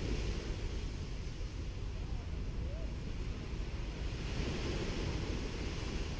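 Gentle sea waves washing up onto a sandy beach, the wash swelling again about four seconds in, over a steady low rumble of wind on the microphone.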